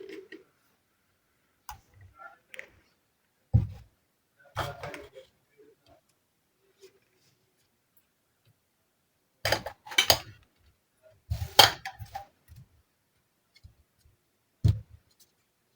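Miniature toy kitchenware being handled and set down, giving scattered light clicks and clatters with quiet gaps between. The busiest clatter comes about two-thirds of the way through.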